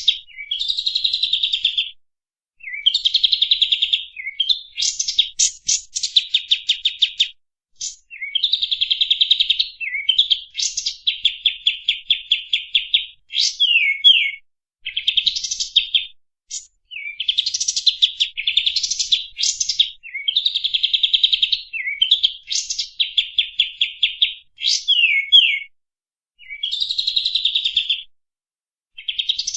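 Kapas tembak singing a long, rapid song: phrases of fast trilled notes one to three seconds long, repeated with short pauses and a few quick gliding notes between them.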